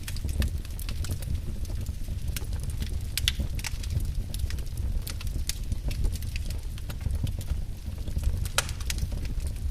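Wood fire crackling in a fireplace: a steady low rumble of burning with irregular sharp pops, one of them louder near the end.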